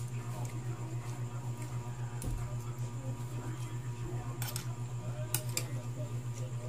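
Spoon and fork clicking a few times against a plate while eating noodles, over a steady low hum with a regular pulse.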